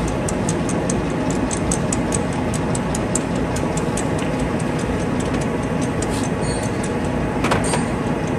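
Warner & Swasey 5A saddle turret lathe running, a steady mechanical drone with a regular light ticking at about four ticks a second that fades out about halfway through.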